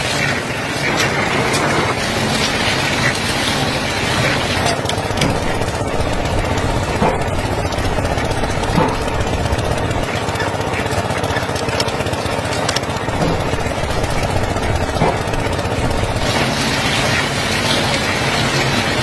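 A machine running steadily, with scattered light ticks and knocks.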